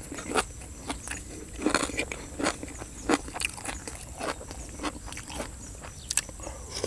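Close-up eating sounds of spicy chicken feet salad: irregular wet, crunchy chewing and smacking, with a spoon scooping sauce from an enamel bowl.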